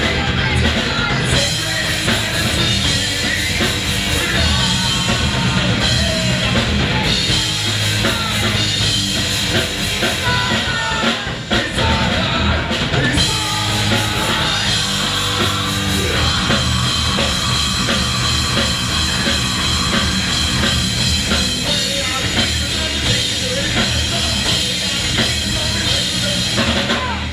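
Live metal band playing loudly: electric guitar, a Mapex drum kit with steady kick drum, and a vocalist singing into a microphone.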